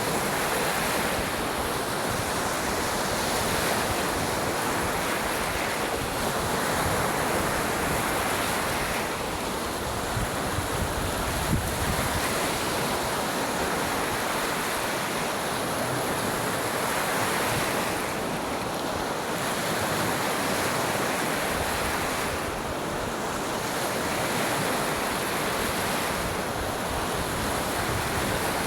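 Waves washing onto a beach: a steady rushing surf that swells and eases every few seconds.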